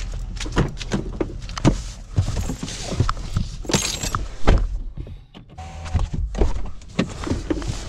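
Handling and movement noise from getting into a vehicle: rustling, clicks and knocks, with the heaviest thunk a little past halfway.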